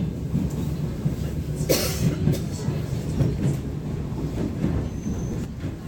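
ER9M electric multiple unit running on the rails: a steady low rumble with the irregular knock of its wheels over the rail joints, and a brief noisy burst about two seconds in.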